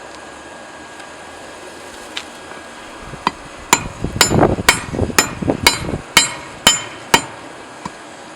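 Hand hammer striking hot railroad-clip steel while drawing out the drift's tip: about ten ringing blows, roughly two a second, starting about three seconds in over a steady hiss.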